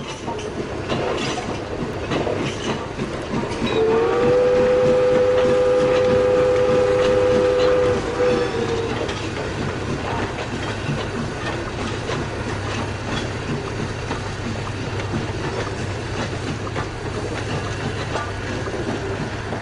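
Train running on the rails, rumbling and clattering, with its whistle blowing one long steady note that begins about four seconds in and stops after about four and a half seconds.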